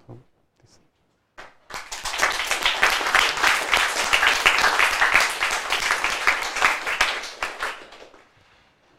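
Audience applauding, a dense patter of many hands clapping that starts about two seconds in and dies away near the end.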